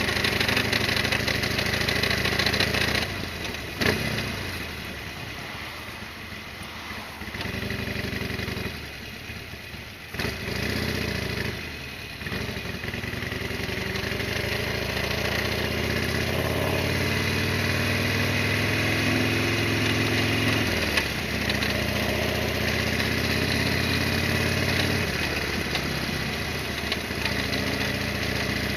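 Air-cooled V-twin engine of a modified Harley-Davidson Sportster XL1200R running while riding. It drops away a few seconds in, then pulls steadily with its pitch slowly rising, and eases off again near the end.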